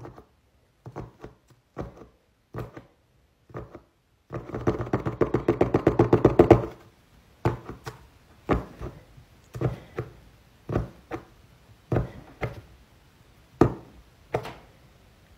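Jumbo paint marker's fibre tip pressed and knocked down onto paper again and again to pump paint into it, giving sharp knocks, often in pairs, about once a second. About four seconds in comes a quicker run of rapid clicks lasting a couple of seconds.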